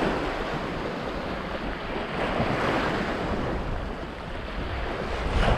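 Small waves washing against the shore, with wind rumbling on the microphone.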